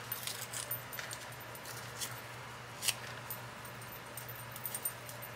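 Light scattered taps and rustles of paper craft pieces being handled on a work surface, with one sharper click about three seconds in, over a low steady hum.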